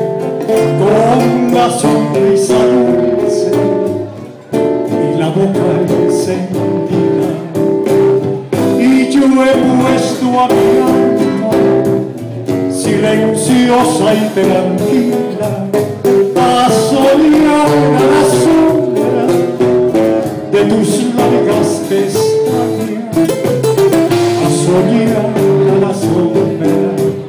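A man sings a song into a microphone, accompanied live by acoustic guitars.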